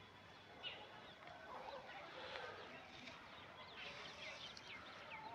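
Faint chorus of small birds chirping, with many short, quick falling notes overlapping one another.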